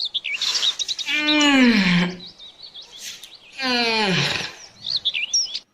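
Birds chirping, with two long animal calls about two seconds apart, each falling in pitch.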